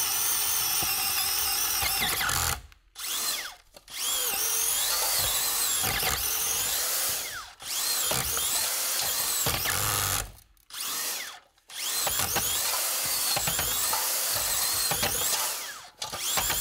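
An electric power drill running under load in long stretches, its whine wavering in pitch. It stops briefly about three seconds in, again around ten to eleven seconds, and near the end.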